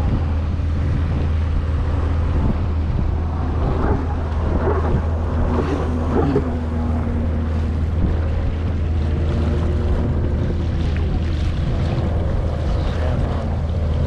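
A small fishing boat's engine running at a steady low drone while under way, with water washing past the hull and wind buffeting the microphone.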